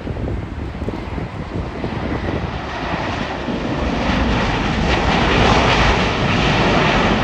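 Airbus A350-1000 jet airliner with Rolls-Royce Trent XWB engines coming in to land, its engine rush growing louder about four seconds in and holding.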